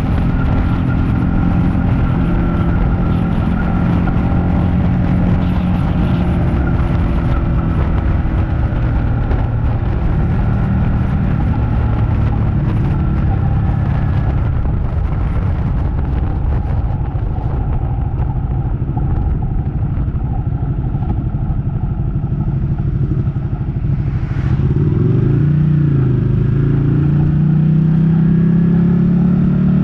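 Ducati Panigale 899's L-twin engine running under way on a ride, its pitch mostly steady and slowly shifting; about 25 seconds in it dips and then climbs again and gets louder, as when the rider shifts and accelerates.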